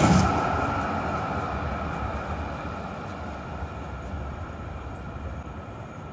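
Duewag M8C eight-axle high-floor tram, built in 1984 with chopper control, rolling past on its rails and drawing away. Its low rumble and a steady high whine fade steadily as it recedes.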